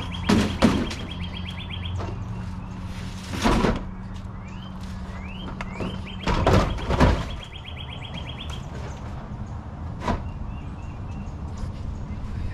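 Plastic tool cases being set down and shoved onto the shelf of a truck's open service-body compartment: bursts of knocking and scraping near the start, about three and a half seconds in and around six to seven seconds in, and a lighter knock near ten seconds. Birds chirp faintly behind it.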